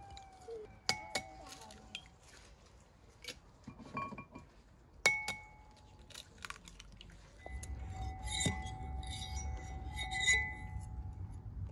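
Eggs tapped and cracked on the rim of a glass bowl, each tap leaving the glass ringing briefly. From about seven seconds in, a metal utensil clinks rapidly against the glass bowl as the eggs are beaten.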